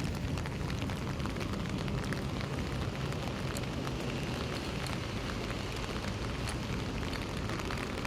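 Steady rain falling, with many small drop impacts pattering over a low rumble.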